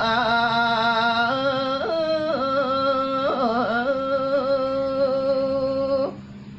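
A single voice singing a Balinese geguritan in the Sinom metre (tembang macapat). It holds long, drawn-out notes with a wavering ornamented turn in the middle, and the phrase ends about six seconds in.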